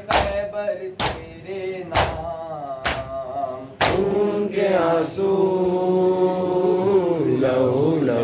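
A noha, a Shia lamentation chant, sung by men: a lead reciter with the group joining, over sharp hand-on-chest strikes of matam about once a second, five in all. Just before halfway the strikes stop and the voices hold long, drawn-out notes.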